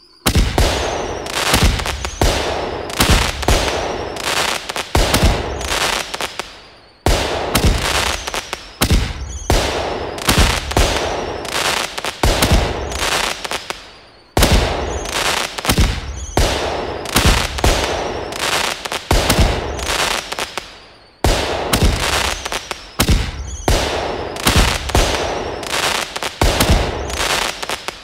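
Fireworks sound effect: a sharp bang followed by a dense run of cracking pops that fades out, repeating about every seven seconds, four times over.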